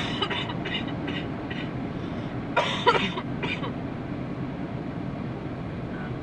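Steady road noise of a moving car heard from inside the cabin, with two short bouts of coughing: one right at the start and another about two and a half seconds in.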